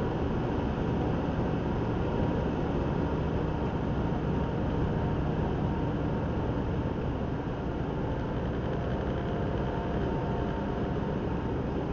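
Car driving at a steady speed, its engine and tyre noise heard from inside the cabin as an even rumble.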